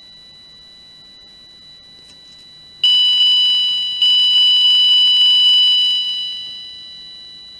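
Electronic chime from a home-built 74HCU04 inverter circuit, its loudness dying away along a capacitor-resistor discharge curve. Two chime notes of several high tones are struck about a second apart, the second ringing about two seconds before fading, with a hiss under them. A faint steady high tone sounds before and after.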